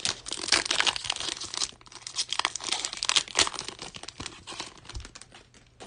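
A foil trading-card pack being torn open and crinkled by hand as the cards are worked out of it, a dense crackle of ripping and rustling wrapper that thins out near the end.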